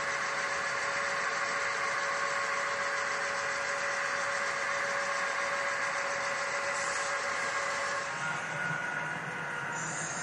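HO scale model train running on the layout: a steady hum of the motor and wheels on the track with a few faint steady tones. About eight seconds in, the sound changes and a lower rumble comes in.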